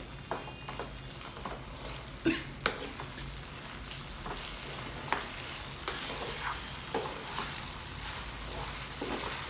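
Chicken and bell peppers sizzling in a frying pan over a high flame, with cornflour slurry just poured in. A wooden spatula stirs the food with irregular scrapes and taps against the pan.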